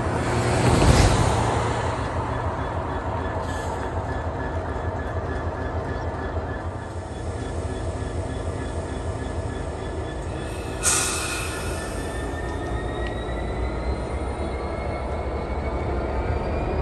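GB Railfreight Class 66 diesel-electric locomotive's EMD two-stroke V12 running as it moves slowly across a level crossing. There are short bursts of hiss about a second in and about eleven seconds in, and a thin rising whine comes in over the last few seconds.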